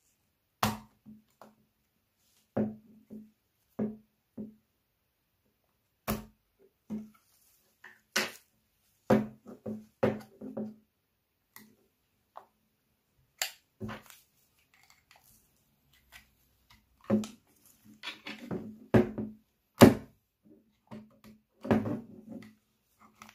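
Plastic shell of a Wahl cordless hair clipper being pried apart with a plastic pry tool: irregular sharp clicks and knocks of the housing and its catches, coming more often in the second half.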